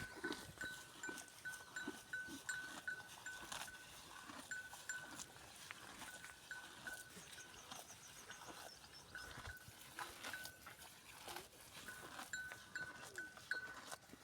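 A small neck bell on a feeding livestock animal ringing in short, uneven jingles again and again as the animal moves its head, with scattered crunching clicks.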